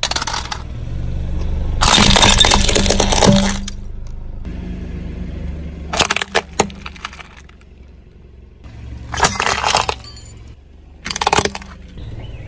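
A car tyre crushing brittle objects: several bursts of cracking and crunching, the longest and loudest about two seconds in, with shorter ones later, over the car's low, steady engine.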